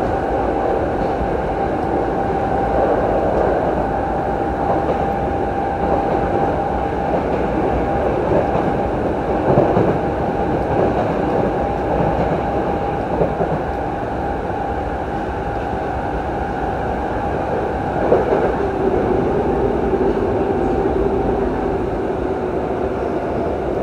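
A Yokohama Municipal Subway 3000A car with Mitsubishi GTO-VVVF traction running between stations, heard inside the passenger cabin. There is a steady rumble of wheels on rail with a high steady tone that fades about halfway through, and a lower steady tone comes in near the end.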